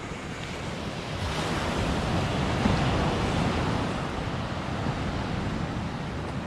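Surf washing up the beach, with wind buffeting the microphone; the wash swells about a second in and eases off later.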